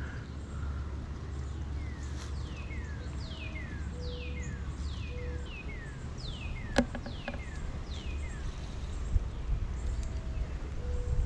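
A songbird singing a run of falling whistled notes, about two a second, over a steady low rumble. There is one sharp click about seven seconds in.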